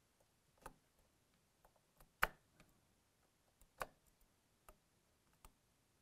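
Brass primer pickup tube pressed down onto primers in a plastic primer tray, clicking as each primer snaps into the tube's slotted end. A few irregular sharp clicks, the loudest about two seconds in.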